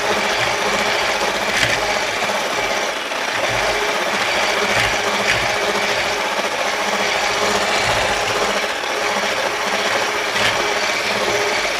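Electric hand mixer running steadily, its beaters churning a thick, dry brownie batter.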